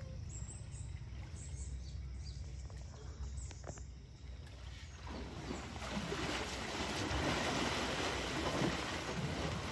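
Asian elephants splashing and churning muddy pond water. The splashing sets in about halfway through and grows louder.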